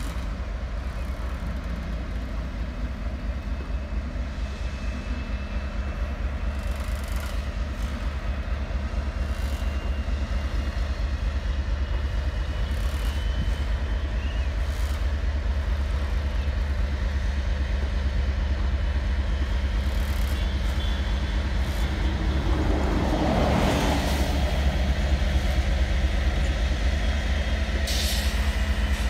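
Class 56 diesel locomotive's Ruston-Paxman V16 engine throbbing steadily as it slowly hauls a heavy loaded aggregate train, growing gradually louder as it draws near. A louder rushing noise of about two seconds comes around two-thirds through, and a short hiss near the end.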